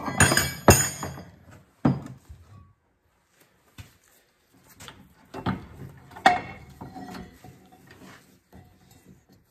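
Steel hydraulic cylinder parts being handled on a workbench: a few sharp metal knocks and clanks, loudest in the first second and again about six seconds in, with scraping and rattling in between as the cylinder barrel is set into a bench vise.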